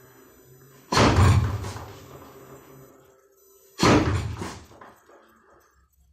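Two lead-hand punches (kizami zuki) landing on a wooden makiwara striking post, about three seconds apart. Each is a sharp knock that fades out over a second or so as the post shakes.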